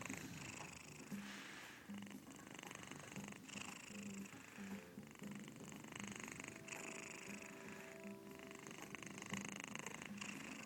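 Sleeping kitten purring loudly with her mouth open, a snore mixed into the purr. It goes in cycles with each breath, with a short break about every second and a half.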